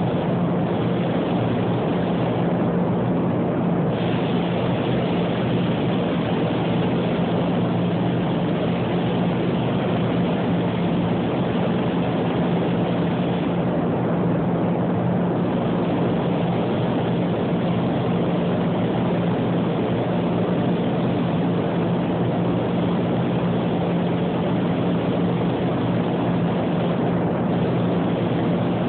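Steady drone and hum of a paint spray booth's ventilation fans, with the hiss of a compressed-air paint spray gun on top. The hiss drops off briefly three times, as the gun's trigger is let go between passes.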